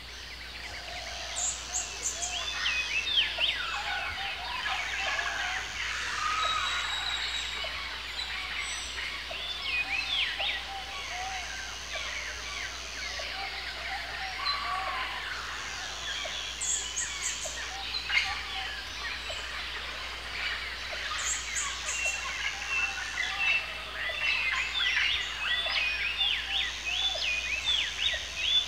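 A dense chorus of birds calling: many short chirps and whistles overlapping, with a few high trills now and then.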